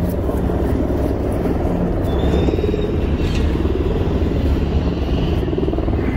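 Helicopter overhead, a steady low rotor rumble that does not let up.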